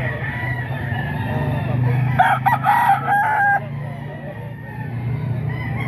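A gamecock crowing loudly about two seconds in, one crow of about a second and a half that cuts off sharply, with other roosters crowing more faintly around it over a steady low hum.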